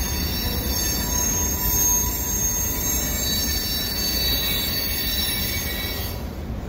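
Freight train cars rolling past, steel wheels squealing against the rails with several high steady tones over a low rumble. The squeal fades out about six seconds in.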